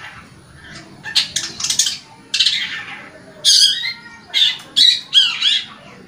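Long-tailed shrike (cendet) singing in a string of short, loud bursts, starting about a second in. The bursts mix noisy notes with quick up-and-down slurred notes, separated by brief pauses.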